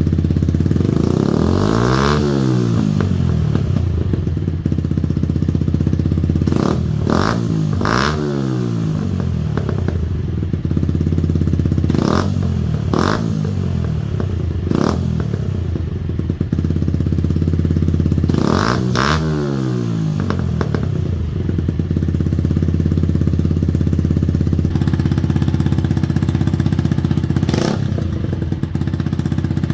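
Yamaha YZF-R125's 125 cc single-cylinder four-stroke engine idling through an exhaust under test, blipped to higher revs a number of times, each rev rising and falling back to idle within about a second.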